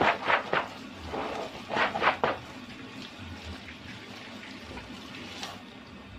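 Water from a hose pouring onto soybeans in a perforated plastic basket as they are rinsed and stirred by hand, with a few louder swishing rushes near the start and about two seconds in.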